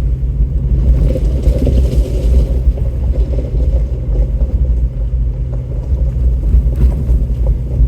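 Off-road vehicle's engine and drivetrain running steadily with a heavy low rumble, heard from inside the cab while it crawls along a rough trail, with occasional small knocks and rattles.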